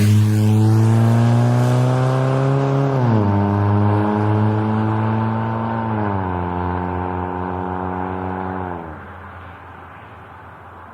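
Exhaust note of a first-generation Mazda 3's four-cylinder engine, muffler removed and straight-piped, loud and raspy-toned. The pitch holds, then steps down about 3 seconds in and again about 6 seconds in. Near the end the engine note falls away.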